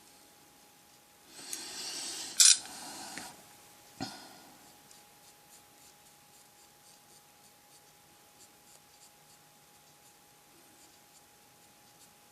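Small handling noises at a hobby desk: a short rustle with one sharp click in the middle, a single knock, then faint scratching of brush or rag work on a plastic model. A faint steady whine runs underneath.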